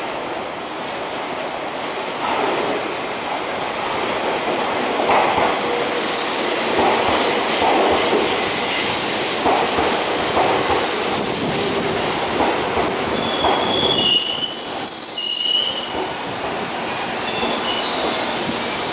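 Tobu 200-series limited express electric train pulling into the platform: wheels rumbling and clacking on the rails, growing louder as the cars roll past. About two-thirds through there are several short high-pitched squeals as it slows, then the running noise eases off.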